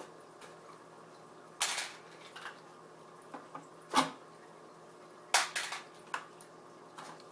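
A series of sharp clicks and clatters, about six in seven seconds, the loudest near the middle, as the control knobs are pulled off a guitar effects pedal and its small parts are handled on a hard surface.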